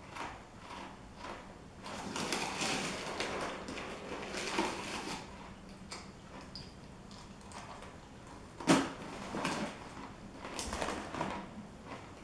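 Handling noises on a tabletop: rustling and shuffling, with a single sharp knock a little under nine seconds in.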